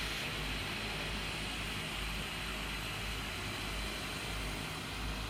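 De Havilland Canada Twin Otter's two turboprop engines running steadily while the plane is on the ground, heard as an even rush with low rumble underneath.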